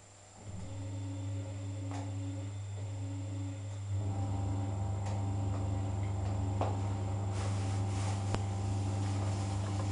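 Cylinda washing machine's electric motor switching on with a steady hum about half a second in, growing louder with a change about four seconds in, with a few light clicks and knocks from the machine.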